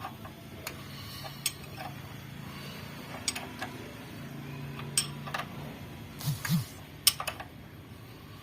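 Scattered, irregular metal clicks and taps of hand tools on an L300 diesel engine while it is turned over by hand to check the timing-belt marks, over a faint low hum that comes and goes.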